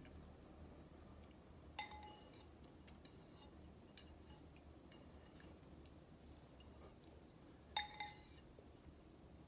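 A metal spoon clinking against a bowl of ramen: a sharp ringing clink about two seconds in, lighter taps about once a second after it, and a quick double clink near the end.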